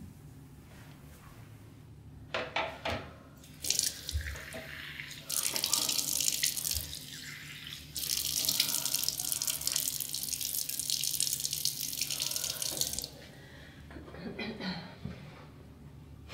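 Bathroom washbasin tap running with water splashing in the basin as the face is washed at it. It starts about four seconds in after a few knocks and is shut off abruptly about thirteen seconds in.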